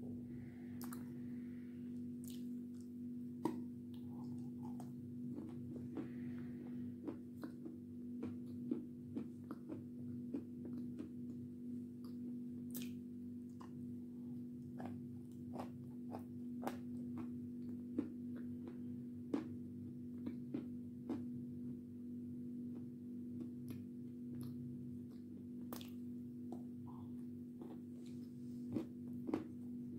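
Biting and chewing a soaked block of white Turkestan chalk: many short, sharp crunches and clicks at irregular intervals, over a steady low hum.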